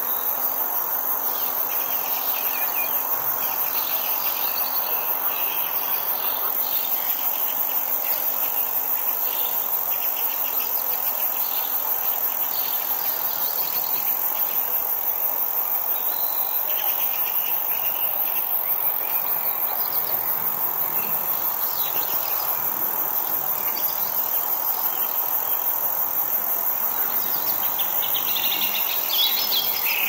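Summer insect chorus: crickets trilling steadily in a dense high-pitched chorus. Scattered bird calls come through all along, with a louder bird call near the end.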